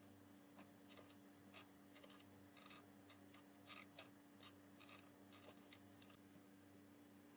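Faint, irregular light scrapes and clicks, about a dozen short strokes over some six seconds, over a steady low hum.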